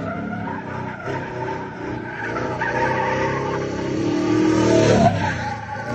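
A car doing donuts on asphalt: the engine revs hard and the rear tyres squeal and skid as it spins. The revs climb to a peak about five seconds in and then fall.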